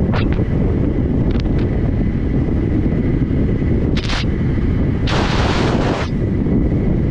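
Heavy wind rushing over the microphone of a camera moving downhill at about 30 mph, a steady low buffeting. Short bursts of hiss break in just after the start, about four seconds in, and again for about a second from five seconds in.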